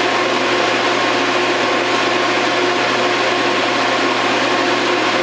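TIG welding arc burning steadily on a rifle's steel tang, a continuous hiss with a steady electrical hum under it.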